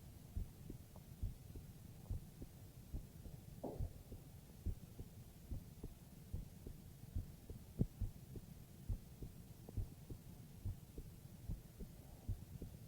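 A person's heartbeat heard close up through the chest: steady low thumps at a slow, even pace of about seventy beats a minute.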